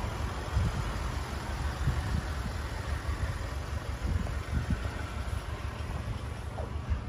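Wind buffeting the microphone: an irregular low rumble with gusts that rise and fall.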